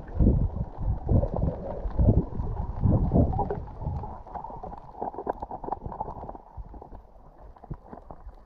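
Muffled underwater sound of a diver swimming: water moving over and knocking against the camera's waterproof housing, with dull thumps about once a second for the first half, then quieter with small clicks.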